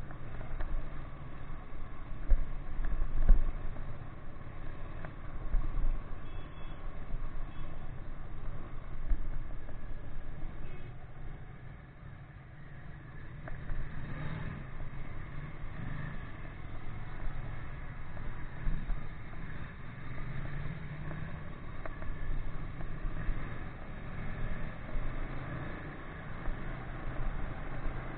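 Ducati 959 Panigale's L-twin engine running under way, heard from a camera on the bike, with irregular low buffeting over it. The sound dips for a moment about twelve seconds in, then picks up again.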